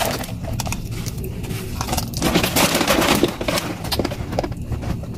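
Paper food wrappers and a cardboard takeout box being handled and opened close by: a run of irregular crinkles and crackles.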